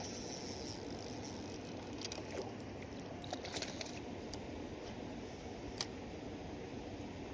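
Steady outdoor background noise, with a few light clicks in the middle and one sharp click near the end.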